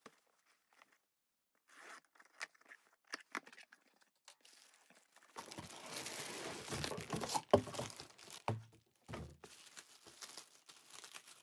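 A cardboard shipping box being opened and a rolling bag in a clear plastic wrapper handled: a couple of seconds in, scattered scrapes and taps, then from about halfway a few seconds of loud, continuous plastic crinkling and rustling with one sharp tap, easing to lighter rustling near the end.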